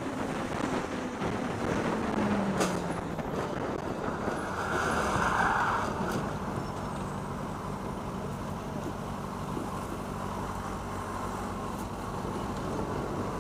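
Traffic and wind noise heard from a motorcycle rider's helmet camera, with an engine note falling in the first second or so. About four and a half seconds in, a harsh noise lasts about a second and a half as a truck collides with a motorcycle beside it. After that, engines run steadily at idle.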